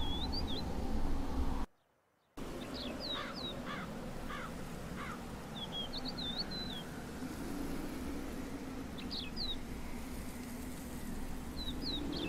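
Small birds chirping now and then: short, high, quickly gliding calls in scattered groups every few seconds, over steady outdoor background noise. All sound cuts out for about half a second soon after the start.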